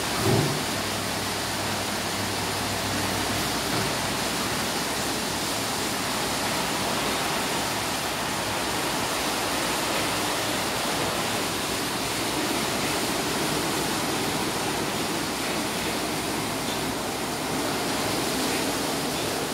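Rollover automatic car wash machine at work: rotating brushes and water spray over the car make a steady rushing hiss. A brief rising tone sounds right at the start, and a low hum stops about three and a half seconds in.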